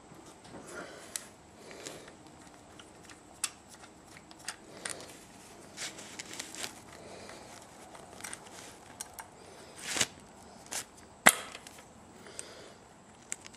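Scattered metal clicks and light knocks of a metric Allen wrench working the socket-head screws of an ATV engine's intake manifold flange loose. Two sharper clicks toward the end are the loudest.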